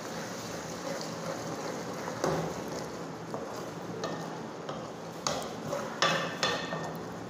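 Wooden spatula stirring and scraping thick tomato masala around an aluminium pot, over a low steady sizzle from the simmering masala as its oil begins to separate. Several sharper scrapes against the pot come in the second half.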